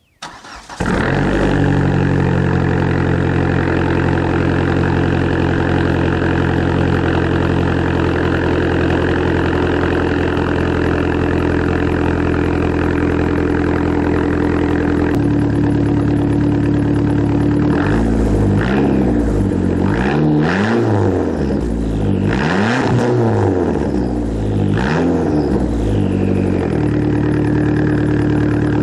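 Straight-piped exhaust of a 2004 Chrysler PT Cruiser GT's turbocharged 2.4-litre four-cylinder, with the muffler removed. The engine starts about a second in and idles steadily, its note shifting a little around the middle. Later it is revved in several quick blips that rise and fall, then it settles back to a steady idle near the end.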